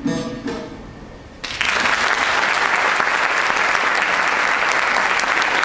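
The last plucked notes of a bağlama ring out and fade, then an audience breaks into steady applause about a second and a half in.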